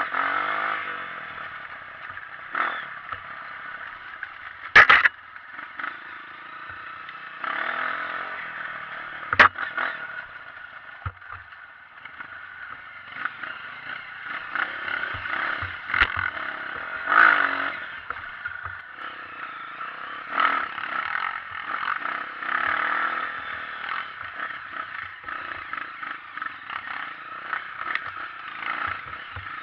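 Honda CRF 230 trail bike's single-cylinder four-stroke engine running while being ridden over rough trail, with clattering, scraping and sharp knocks over it. The loudest knocks come about five seconds in and again near nine and sixteen seconds.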